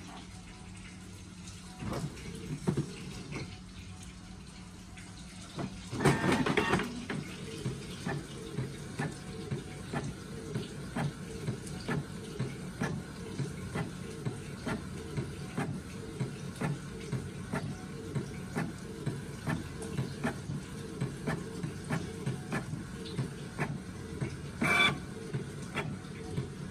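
Canon Pixma G3420 inkjet printer printing a page. About six seconds in there is a louder mechanical whirr as the paper is drawn in. Then the print-head carriage shuttles back and forth with regular ticks, about two a second, under a steady motor hum, and a louder burst near the end comes as the printed page is pushed out.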